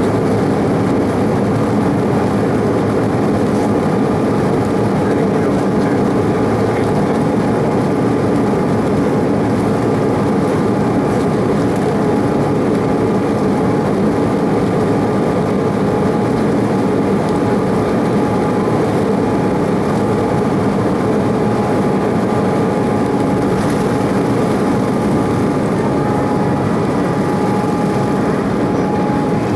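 Cabin noise inside an Embraer 190 climbing out after takeoff: its General Electric CF34-10E turbofans at climb power give a steady rush of engine and air noise, with two steady whining tones above it.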